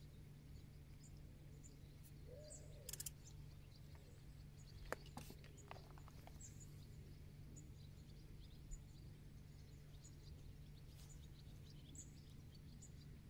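Near silence: quiet lakeside air with faint, occasional bird chirps and a few small clicks.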